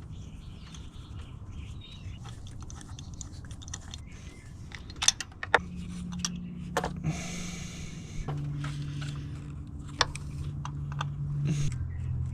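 Small metal clicks and clinks of a spark plug socket and tools on the engine as a spark plug is threaded back in, with a short rasp about seven seconds in. A steady low hum comes in about halfway and holds to the end.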